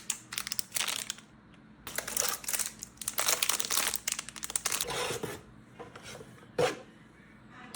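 Plastic packaging crinkling and tearing in bursts as a product is unboxed, with one sharp knock near the end.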